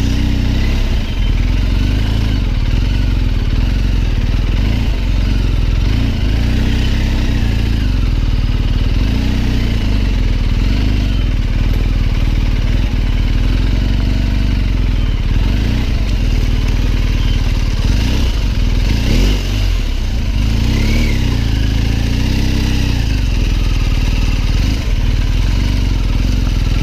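BMW R 1250 GS Adventure's boxer-twin engine running under way, its revs rising and falling again and again with the throttle.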